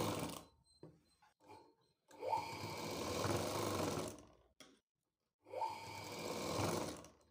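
Sewing machine stitching a seam through cotton fabric in three short runs with pauses between. Each of the later two runs starts with a quick rising whine as the machine gets up to speed.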